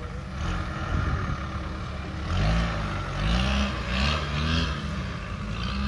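Land Rover Defender 300Tdi's 2.5-litre four-cylinder turbodiesel engine working under load as the pickup crawls over rough off-road ground. Its revs rise and fall in several surges from about two seconds in.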